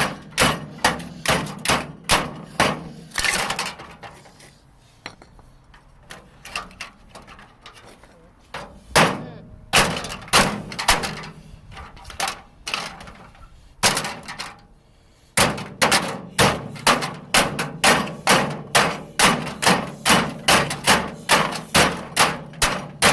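Rapid hammer blows striking a microwave oven, about two or three strikes a second, in runs broken by two short pauses.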